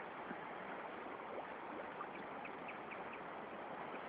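Steady wash of a flowing river around a wader, with a few faint short high chirps a little past halfway through.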